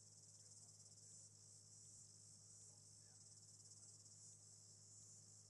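Near silence: a faint, steady high-pitched hiss with a fine regular flutter, over a faint low hum.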